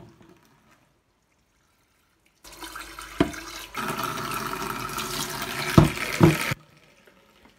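Water running into a kitchen sink for about four seconds, starting about two and a half seconds in, getting louder after a second and cutting off suddenly, with three short knocks along the way.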